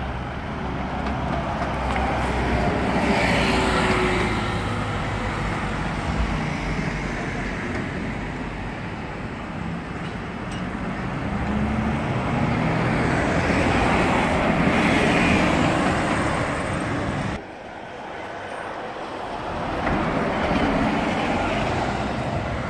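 Buses and other street traffic passing, engine rumble and tyre noise swelling as each bus goes by, three times. The sound cuts down sharply about two-thirds through.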